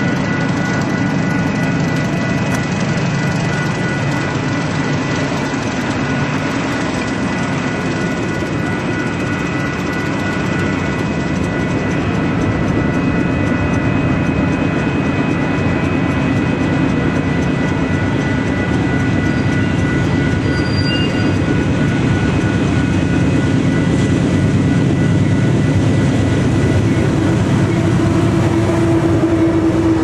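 Norfolk Southern diesel locomotive leading a freight train of covered hopper cars past at speed: the engine runs and the cars roll over the rails in a steady, loud rumble. A few steady high tones sound over it and fade out about two-thirds of the way through.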